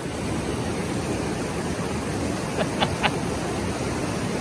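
Steady rushing of river water, an even noise with no rhythm, with a few faint short ticks about halfway through.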